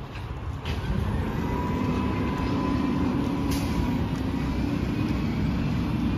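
Diesel engine of a Peterbilt 567 rear-loader garbage truck running at the curb. Its low rumble grows louder about a second in and then holds steady.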